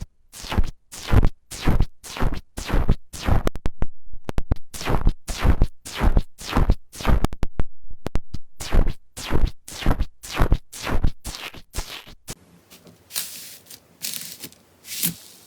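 Hands squishing and pressing slime in a steady rhythm, about two squelching strokes a second. The strokes stop about twelve seconds in, leaving a few softer, scattered crackles.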